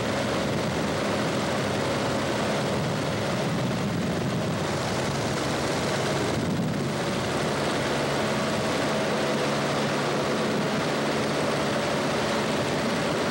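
Cabin noise of a 1966 Cessna 150 in flight: the Continental O-200 four-cylinder engine and propeller drone steadily, with a steady hum under an even rush of air.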